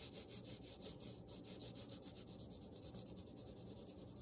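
Graphite pencil shading on paper: faint, quick back-and-forth strokes, several a second, laying down a medium gray.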